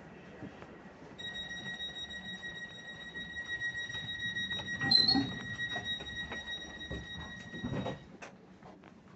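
Door-closing warning tone of an ED160 electric multiple unit: a continuous high electronic tone for about seven seconds, cut off about eight seconds in by a thump as the doors shut. A sharp click sounds midway through.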